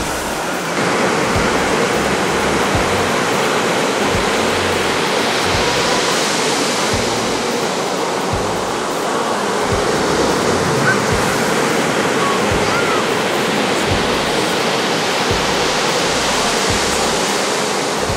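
Ocean surf breaking on the beach: a continuous rush of churning water and foam that swells twice, about six seconds in and again near the end, with scattered low thumps.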